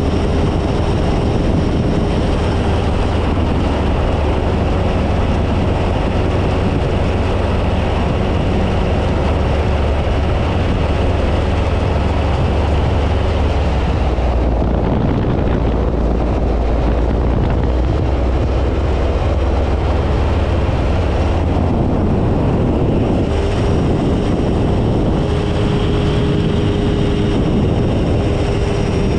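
Phantom ultralight's engine and propeller droning steadily in flight, with a heavy rush of wind over the microphone. The tone shifts a little around the middle.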